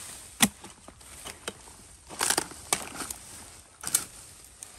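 A digging tool chopping into a mound of clumpy earth, with soil breaking apart and scattering. The strikes are uneven: a sharp one about half a second in, then a cluster of strikes and crumbling in the middle.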